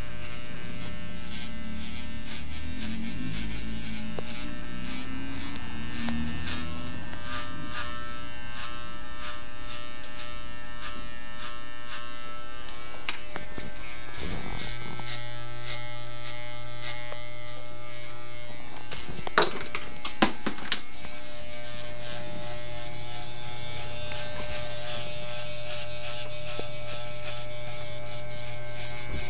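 Electric hair clippers running steadily while cutting short hair. A few sharp clicks come about two-thirds of the way through.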